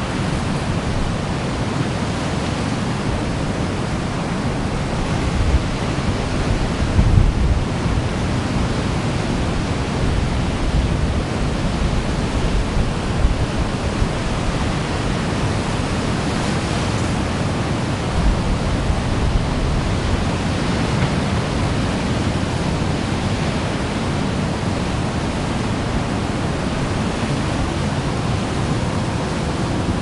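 Ocean surf breaking and washing up a beach: a steady roar of noise with a louder low surge about seven seconds in.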